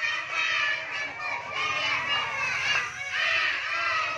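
Many young children's voices at once, high-pitched and continuous, overlapping without a pause.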